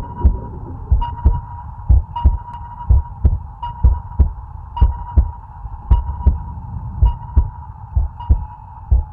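Heartbeat sound, a low double thump (lub-dub) repeating about once a second, over a steady high hum that brightens slightly with each beat.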